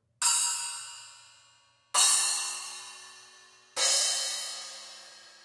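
Wuhan bronze splash cymbal struck three times, about two seconds apart, each hit a bright crash that rings and fades away before the next.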